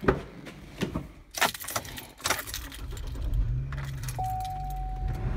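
Someone getting into a car: sharp clicks and knocks from the door and keys jangling, then the engine being started, a low rumble building over the last few seconds. A steady tone comes in about four seconds in.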